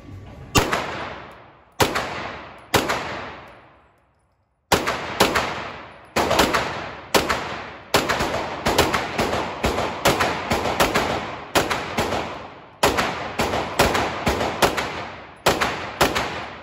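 9mm gun fired semi-automatically through a full magazine: three shots about a second apart, then a long string of quick shots, roughly two or three a second, each with a long ringing tail.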